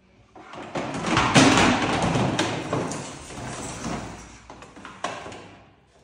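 A canister vacuum cleaner pulled off a windowsill and dragged by its hose across a tiled floor by a puma: a scraping, rattling plastic clatter, loudest a little over a second in, that trails off, with a sharp knock near the end.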